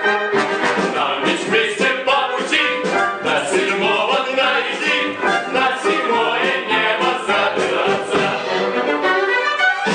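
Live theatre orchestra playing an operetta-style number, with singers' voices over the accompaniment.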